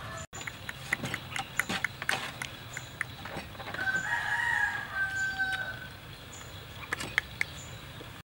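A rooster crows once, a long call of about two seconds near the middle, amid scattered short clicks and knocks.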